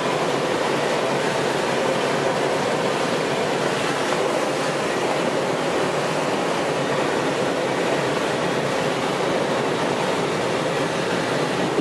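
Steady rush of air streaming over a motorless Grob 103 sailplane's canopy, heard from inside the cockpit as the glider glides in low to land.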